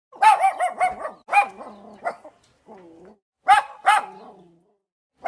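Dog barking in high-pitched runs: four or five quick barks in the first second, a few single barks after, a softer lower call about three seconds in, and two more sharp barks near the end.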